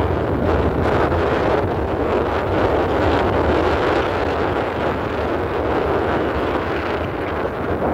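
Wind buffeting the microphone over the steady running noise of a moving vehicle, a loud even rush with a low rumble underneath.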